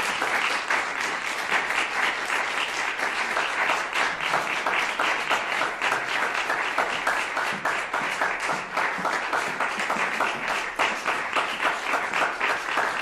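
Audience applauding: many hands clapping together in a steady, unbroken stream.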